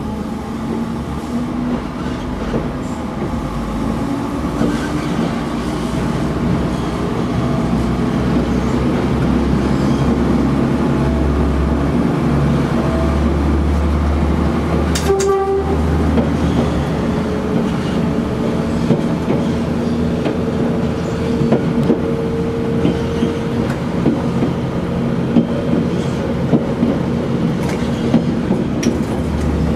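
QR 2000 class diesel railmotor under way, heard from inside: a steady engine drone with wheels running on the rails, through a tunnel at first and then out in the open. A short sharp clack about halfway, and sharp wheel clicks over the rail joints near the end.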